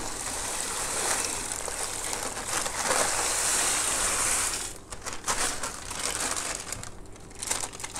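Rock salt poured from a plastic packet into a bucket of water, a steady pour for about the first four and a half seconds, then the plastic packet crinkling in short irregular rustles as it is shaken out.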